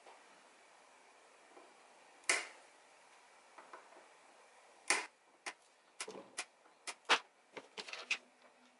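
Sharp, irregular clicks of small pliers working at the edge of a circuit board in a metal chassis: one about two seconds in, then a quick run of about a dozen between five and eight seconds.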